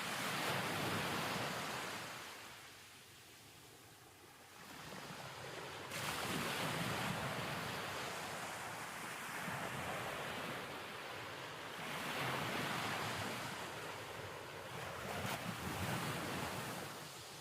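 A rushing noise that swells and fades in long surges lasting several seconds. It dips low about three seconds in and comes back suddenly louder about six seconds in.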